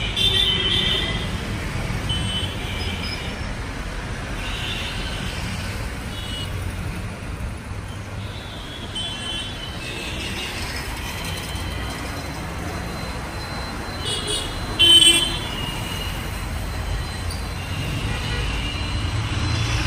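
Street traffic: a steady low rumble of engines with vehicle horns tooting several times, the loudest a short blast about three quarters of the way through.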